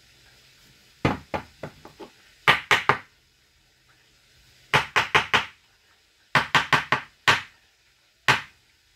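Hard knocks in quick clusters of four to six, five groups in all with a single knock near the end, from kitchen utensils being struck against a hard surface.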